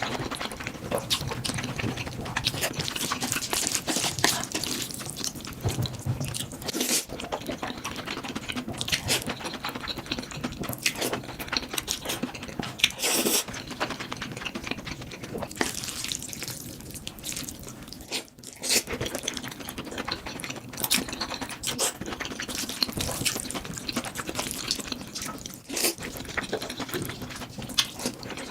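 Close-miked eating of spicy noodles: wet chewing and smacking, made up of many short, sharp mouth clicks.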